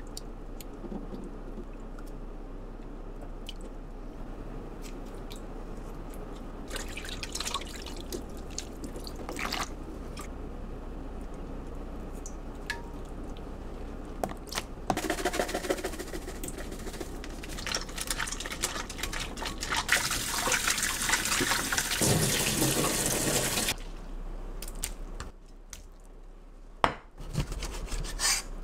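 Water running and dripping, with scattered light clicks and knocks; the flow is heaviest for several seconds just past the middle.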